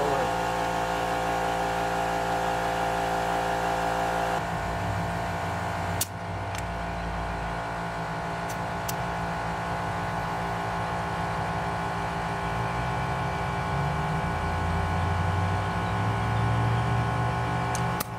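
Air compressor running steadily with a whirring motor hum while a pickup tire is aired up through an air chuck on its valve stem. About four seconds in the higher hiss drops away while the motor keeps running, and there is a sharp click about six seconds in.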